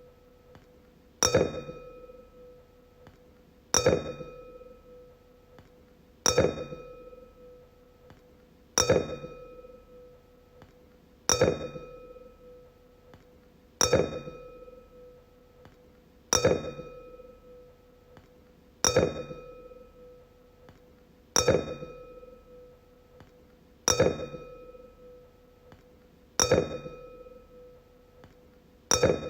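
A wine glass struck about every two and a half seconds. Each strike gives a sharp clink followed by a clear ring that fades over a second or two.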